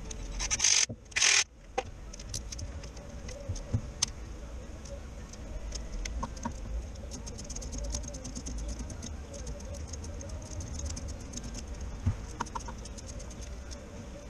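Two short bursts of a power tool spinning on a bolt at the gearbox mount about a second in, followed by a hand ratchet clicking in quick runs as a bolt is turned by hand.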